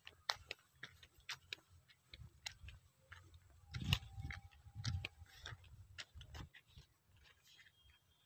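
Footsteps on dry, crumbly soil: faint, irregular light crunches and clicks, with a louder knock about four seconds in.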